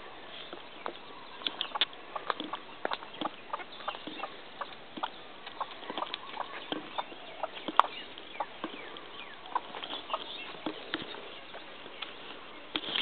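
Footsteps crunching through dry leaf litter and twigs, a string of irregular crackles and snaps with one sharper snap about eight seconds in.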